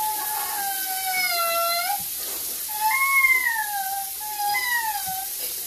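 A young boy crying in three long, high-pitched wails, each bending up and then sliding down.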